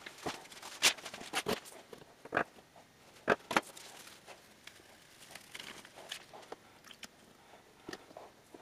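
Sharp clacks and knocks of a long steel ruler and other objects being set down and moved on a wooden workbench, loudest about a second in and again about three and a half seconds in. After that comes softer rustling and crinkling as a sheet of paper is handled.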